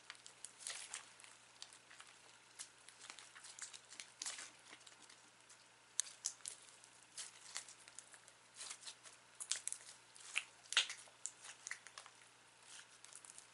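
Sticky slime mixed with foam clay bits being squished and stretched by hand, giving irregular small crackles and pops.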